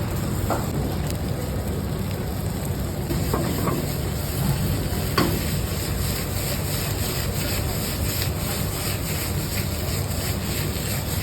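Food sizzling in a hot pan, with a few clinks and repeated scraping strokes of a utensil in the pan, over a steady low rumble.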